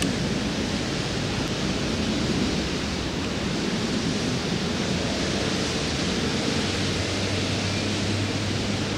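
Storm wind: a steady, even rushing noise with no distinct events.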